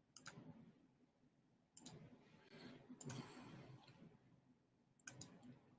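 Near silence broken by faint clicking in four short clusters, with a soft rustle about three seconds in.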